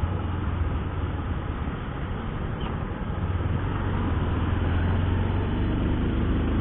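Motorcycle riding in traffic, heard from a rider-mounted action camera: engine running under a steady rush of wind and road noise on the microphone. The low rumble grows louder about halfway through as the bike picks up speed.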